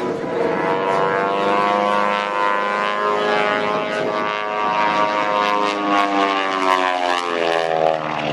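Twin-engine Beech 18's two Pratt & Whitney R-985 radial engines droning through an aerobatic pass, their pitch rising during the first couple of seconds and then sliding steadily down as the plane passes and pulls away.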